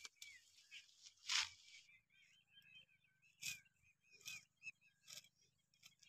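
Green fodder stalks, berseem, being cut by hand close to the ground: a short crisp cutting sound about every 0.8 s from about two seconds in, after a single rustle of leafy plants. Faint bird chirps run under the cutting.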